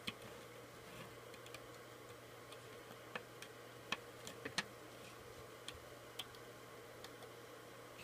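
Faint, irregular light clicks of a plastic hook tapping and catching on the plastic pegs of a Crazy Loom as rubber bands are hooked and flipped over, over a steady low hum.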